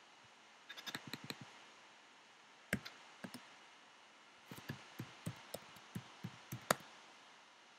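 Typing on a computer keyboard: irregular, faint key taps in short bursts, with a run of quick taps in the second half and the loudest tap near the end.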